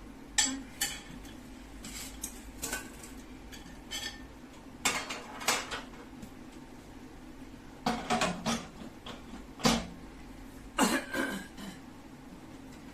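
Hard objects being handled, clinking and knocking against each other: about a dozen short, irregular clinks in small clusters.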